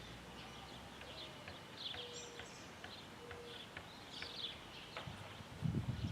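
Faint outdoor birdsong: scattered short chirps and calls from small birds. A few low thumps come near the end.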